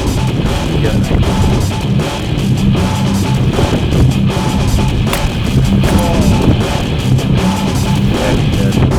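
Loud rock music with distorted electric guitar and a drum kit.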